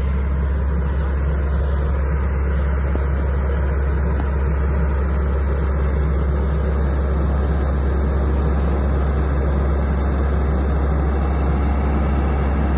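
Caterpillar E120B excavator's diesel engine running steadily close by, a constant low hum.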